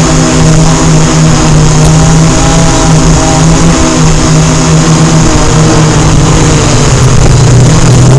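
Blade Chroma quadcopter's four electric motors and propellers humming steadily, close to its onboard camera, with the pitch dropping slightly near the end.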